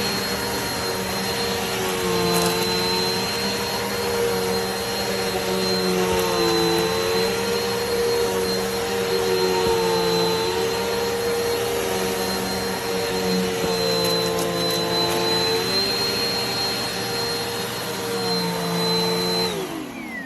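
Eureka PowerSpeed NEU181A bagless upright vacuum cleaner running with a steady high whine, its motor pitch dipping briefly every few seconds as it works over the floor. Near the end it is switched off and the whine falls away as the motor winds down.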